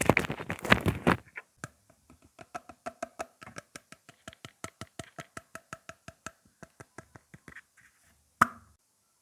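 Close-miked ASMR tapping: about a second of dense crackling, then a long run of quick light taps, about six a second, on a hard object that rings faintly with each tap, ending with one louder knock near the end.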